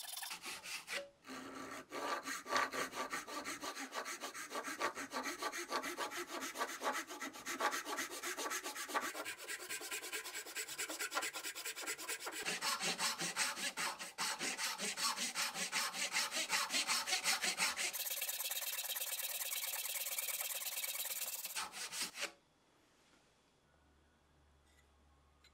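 Japanese back saw cutting a kerf into the end grain of a hardwood workpiece clamped in a vise, in fast, even, back-and-forth strokes with a brief pause about a second in. The sawing stops suddenly a few seconds before the end, leaving only faint room tone.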